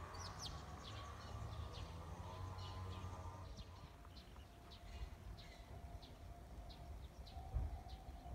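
Small birds chirping, short sharp notes one or two a second, over a low outdoor rumble. A faint steady tone comes in about halfway through.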